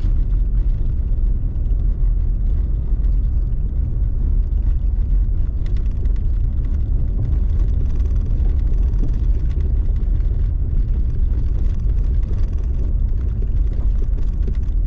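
Toyota Tacoma pickup driving, with a steady, loud low road and engine rumble.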